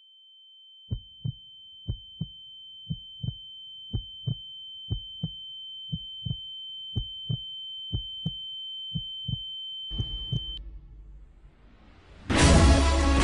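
Heartbeat sound effect: a double thump about once a second over a steady high-pitched tone, building suspense. The tone cuts off a little after ten seconds, and music comes in loudly about a second before the end.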